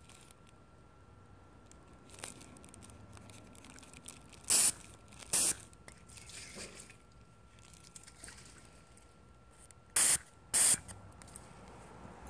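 Aerosol can of nonstick cooking spray giving four short hissing sprays, in two pairs about five seconds apart, to loosen the glue of a sticky trap.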